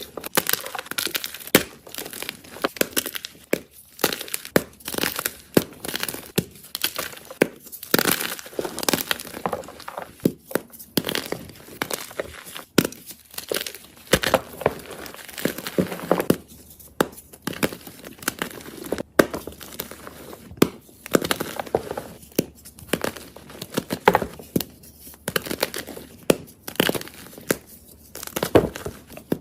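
A soft block of gym chalk being crushed, crunching and crumbling in quick, irregular crackles with no steady rhythm.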